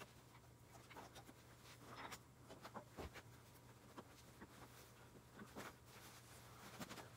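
Near silence: faint, scattered light clicks and short scrapes of parts and tools being handled, over a low steady hum.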